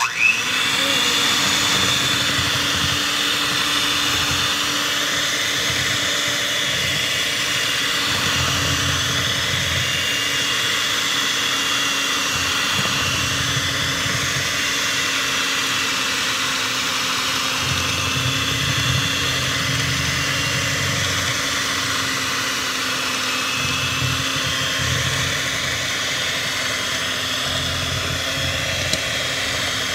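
Electric hand mixer switched on and spinning up, then running steadily with a constant motor whine while its twin beaters churn thick brownie batter in a plastic tub, the low churning rising and falling as the beaters move through the batter.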